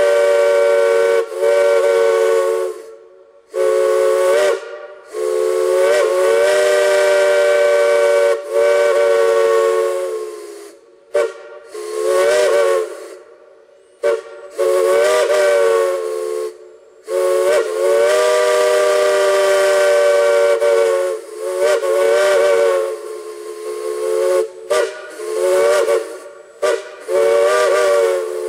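Multi-chime steam whistle blown in about a dozen blasts, some short and some held for several seconds, each sounding a chord of several tones that slides in pitch as it opens and closes, over a hiss of steam.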